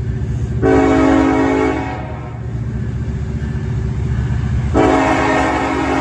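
Norfolk Southern SD70ACe locomotive air horn sounding a chord in two blasts: a short one about half a second in, then a longer one starting near the end and still held. A steady low rumble from the approaching locomotive runs underneath.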